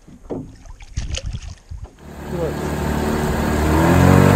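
A few light clicks and knocks, then a Mercury outboard motor running under way from about two seconds in. Its pitch rises as it throttles up and then holds steady, with the wash of water under the hull.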